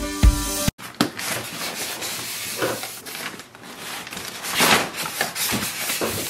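Styrofoam packing piece scraping and rubbing against a cardboard box and plastic-wrapped printer as it is pulled free, with scuffs and rustling, the loudest a little past the middle. A strummed acoustic guitar cuts off abruptly under a second in.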